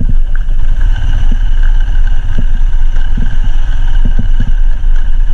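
Royal Enfield Himalayan motorcycle with its single-cylinder engine riding slowly over a rough dirt track: a loud, steady low rumble, with short knocks scattered through it as it goes over the bumps.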